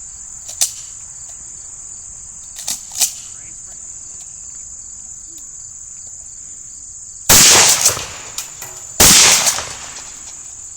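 Two shotgun shots about a second and a half apart, late in the stretch, each with a short echoing tail, after a few small clicks. A steady high-pitched insect chorus, like crickets, runs underneath.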